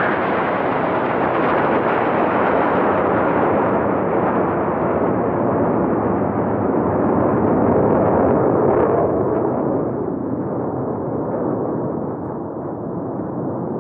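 Jet noise from a formation of Northrop F-5E Tiger II fighters flying past, a loud, steady rushing rumble. It grows duller and fades over the last few seconds as the jets move away.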